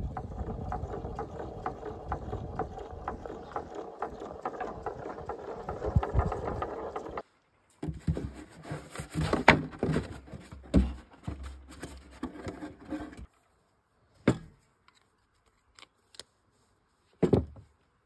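Plastic-bottle windmill scarecrow spinning in the wind, rattling and ticking steadily on its wire axle. After a cut, a 6-litre plastic bottle crackles and scrapes as it is handled on a wooden table, then two separate knocks as tools are set down on the boards.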